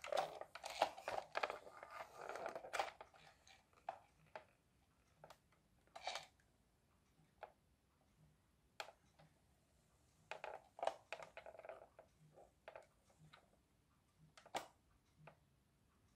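Faint handling noise: hands turning a plastic toy tractor, with scattered soft clicks and rustles that come in clusters near the start and again about two thirds of the way through.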